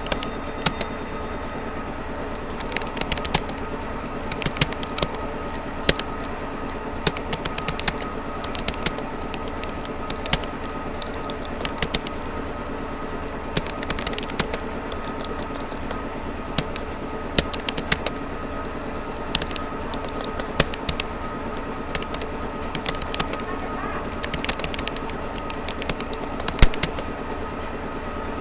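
Typing on a Rapoo computer keyboard: irregular key clicks in uneven runs over a steady background hum, with one louder key strike near the end.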